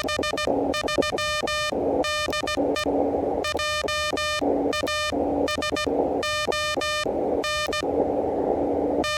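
Elecraft KH1's CW sidetone: Morse code keyed at about 16 words per minute, a buzzy tone cut into dots and dashes, with the receiver's band hiss filling the gaps between characters.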